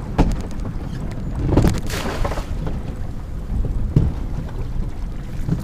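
Wind buffeting the microphone on a small open boat at sea, a steady low rumble. A few short knocks, one near the start and one about four seconds in, and a brief rush of noise about two seconds in.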